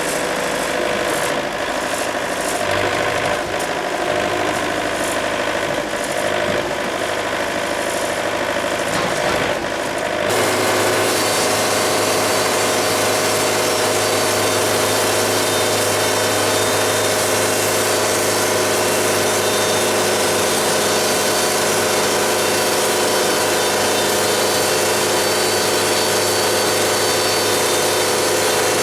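Wood-Mizer LT70 band sawmill running steadily. About ten seconds in the sound changes abruptly to a fuller, steady drone that holds to the end.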